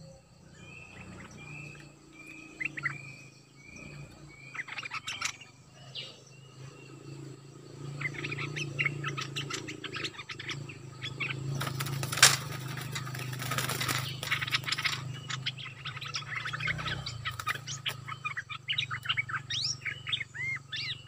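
Bulbuls calling at a decoy cage: a row of about six short whistled notes, then fast excited chattering calls. About twelve seconds in there is a sharp knock with a burst of rustling and fluttering, over a steady low hum.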